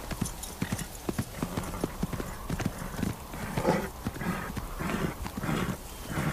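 A horse's hooves beating on dry dirt at a fast run, in a steady rhythm of strides that grows louder and fuller from about halfway through.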